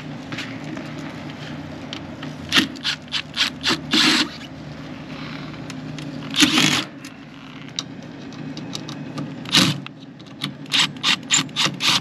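Cordless Milwaukee impact driver backing out the sheet-metal panel screws of a mini-split outdoor unit in several short bursts, among strings of sharp clicks as the worn-out bit tip slips in the screw heads.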